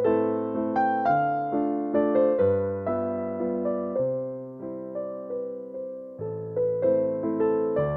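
Background music: a piano playing slow chords and a melody, with notes struck about twice a second and left to ring.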